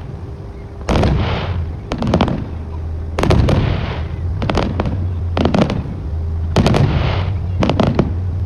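Aerial fireworks going off in a display, a sharp bang about every second, some in quick pairs, each followed by a fading crackle.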